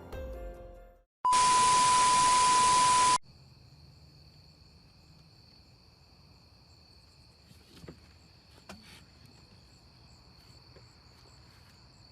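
A loud steady beep over a burst of static, about two seconds long, starting suddenly after the music ends and cutting off sharply. Then faint steady hiss with a thin high whine, and two soft clicks near the middle.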